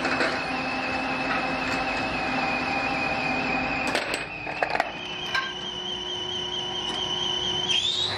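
Metal lathe turning steel motorcycle sprocket blanks, running with a steady whine and a lower hum. About four seconds in the whine breaks off and there are a few sharp metallic clanks as the chuck is tightened with its key and a new blank is handled. From about five seconds the lathe runs again with a higher whine, which rises in pitch near the end.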